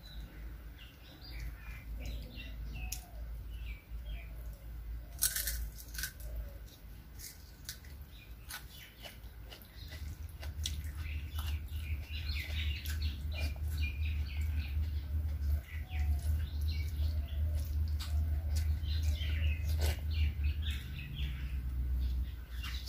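Eating by hand: rice and curry squished and mixed with the fingers, chewed, with sharp clicks and smacks. Many short high chirps run through it, over a steady low hum that gets louder about ten seconds in.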